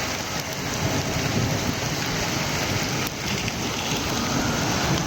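Heavy rain falling steadily in a thunderstorm, an even hiss of downpour.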